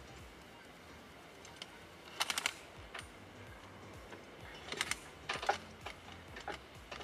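Short bursts of rapid clicking and clatter from work on the track. One tight run comes about two seconds in, and several more come between about five and six and a half seconds in.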